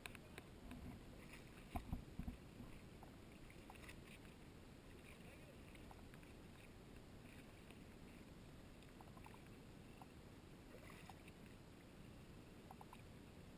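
Near silence heard through a GoPro's sealed dive housing held at the sea surface: faint muffled water movement, with a few dull knocks about two seconds in.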